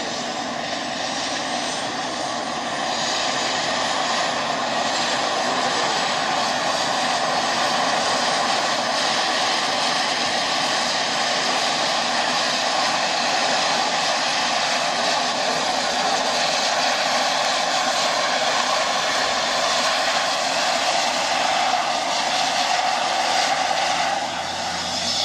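AgustaWestland A109 Grand helicopter running on the ground, its twin turboshaft engines and turning main rotor making a steady loud turbine and rotor noise, with a high whine rising in pitch in the first couple of seconds as the rotor picks up speed.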